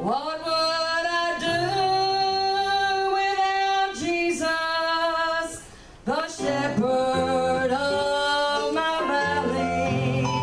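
A woman singing a gospel song solo over instrumental accompaniment, holding long notes, with a short break between lines about six seconds in.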